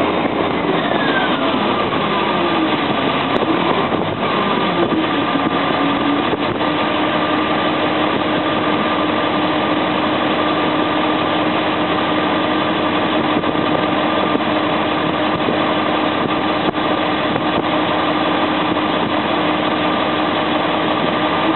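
Heavy diesel engine of a Caterpillar articulated water truck running, over a steady rushing noise. A whine falls in pitch over the first several seconds, then holds steady.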